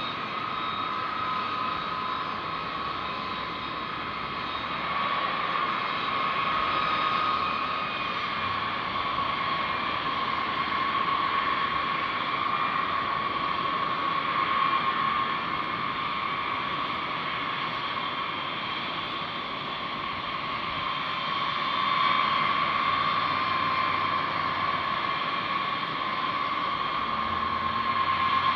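Turbofan jet engines of B-52H Stratofortress bombers running at low taxi power: a steady high whine over a rushing hiss, swelling slightly about three quarters of the way through.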